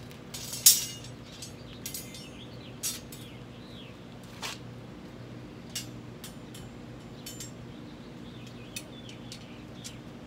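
Steel wire rods of a Honda HRX217 mower's grass-bag frame clinking and tapping against each other as they are handled and fitted together. The sound comes as scattered sharp clicks, the loudest a little under a second in.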